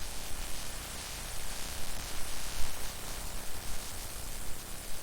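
A steady hiss of noise spread evenly from low to high pitches, its loudness flickering up and down.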